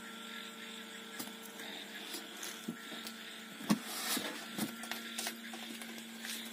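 A steady electrical hum, with a few soft rustles and knocks of handling. The loudest is a knock about three and a half seconds in, as the styrofoam lid of a homemade egg incubator is set in place.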